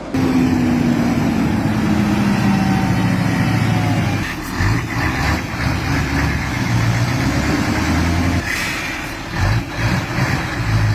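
Heavy diesel engine of a loaded logging rig running hard, its note sinking slowly over the first few seconds, with rumble and knocks later on.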